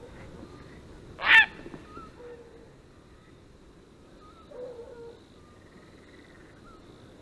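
A heron's single loud, harsh honking croak about a second in, followed by a softer call near five seconds, over faint short chirps from small birds.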